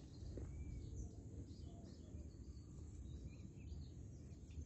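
Faint, scattered chirps of small birds and insects over a low, steady rumble.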